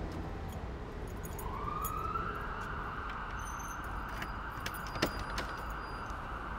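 Street ambience with a low traffic rumble; about a second and a half in, a distant siren rises in pitch and then holds a steady wail. A few faint clicks sound over it.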